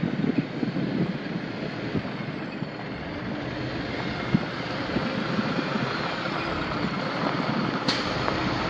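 The semi truck's 15-litre Cummins ISX15 six-cylinder diesel running steadily, with wind buffeting the microphone.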